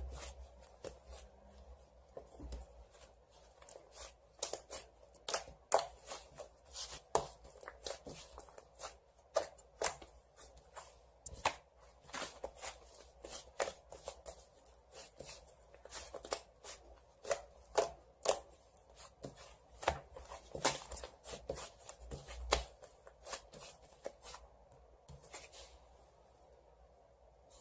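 White fluffy slime-clay being squished and pressed by hand, giving irregular sharp clicks and crackles, one to three a second, that stop near the end.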